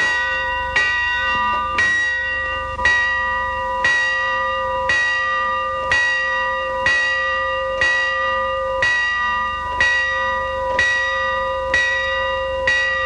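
Schoolhouse bell rung by its pull rope, struck about once a second in a steady rhythm, each stroke ringing on into the next.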